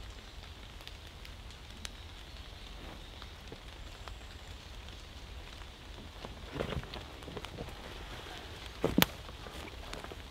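Steady rain falling through woodland trees, a hiss with scattered drops ticking. Two louder knocks come about six and a half and nine seconds in, the second the loudest.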